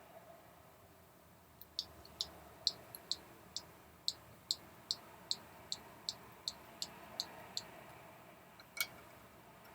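Kailh mechanical keyboard switches being pressed in quick succession: a run of sharp, crisp clicks, about two and a half a second for some six seconds, then one louder click near the end.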